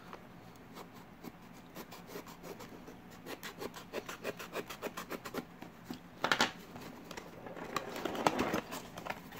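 Hobby knife blade cutting along the seam of a small cardboard box: a rapid run of short, faint scratching strokes, with louder rasps about six and eight seconds in as the card gives and the flap is pulled open.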